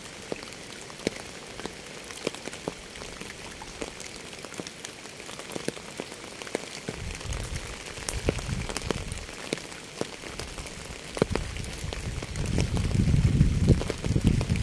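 Steady rain hissing, with single drops ticking sharply on a hard surface. A low rumble swells up about seven seconds in and again, louder, near the end.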